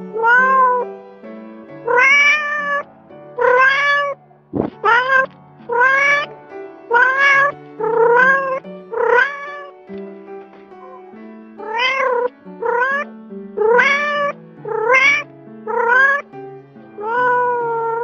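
Domestic cat meowing over and over, about one call a second with a short pause in the middle, each meow rising and then falling in pitch, over soft background music.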